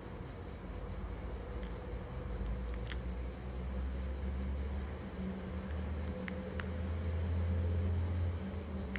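Steady high-pitched chirping of crickets over a low hum that grows louder near the end, with a few faint clicks.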